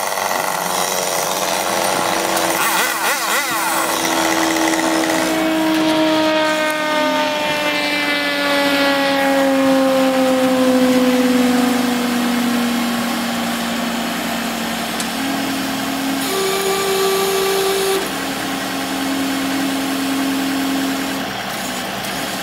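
Truck-mounted crane's engine running as it lifts a cut section of redwood trunk, its pitch sinking slowly over several seconds in the middle and then holding steady.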